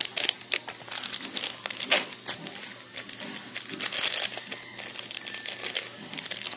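Milo powder sachet crinkling as it is handled and torn open, with irregular rustles and crackles and a denser patch about four seconds in.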